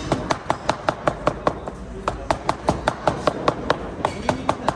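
Cleaver chopping cooked meat on a wooden cutting board in quick, even strokes, about five a second, with a brief pause a little before halfway.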